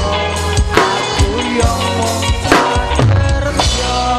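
Live band music: a drum kit plays hits and fills over held bass and instrument notes.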